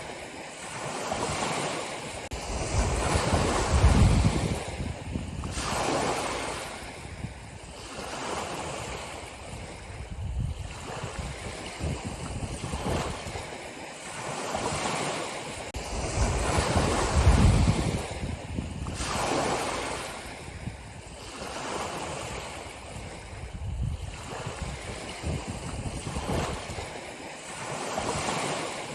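Ocean waves breaking and washing in, surging and falling back every few seconds, the two largest about four seconds in and again past the middle, each with a deep rumble.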